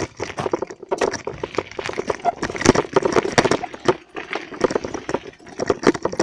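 Dense, irregular rattling and knocking of a bicycle and its mounted phone jolting over rough ground.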